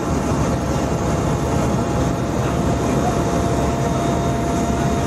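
Helicopter cabin noise in flight: a steady, loud drone of the engines and rotor with a faint steady whine.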